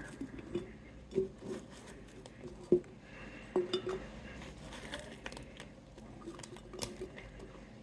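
A few scattered soft knocks and clinks of chopped onion, ginger and garlic being put into a glass mason jar.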